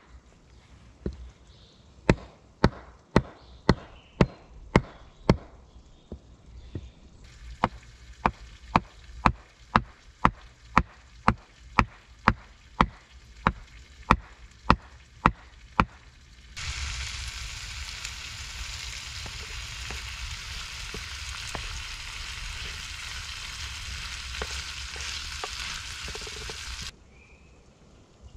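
Hammering on wood: a string of sharp knocks, about two a second, for the first sixteen seconds. After that comes a steady hiss, like sizzling, lasting about ten seconds, which starts and stops abruptly.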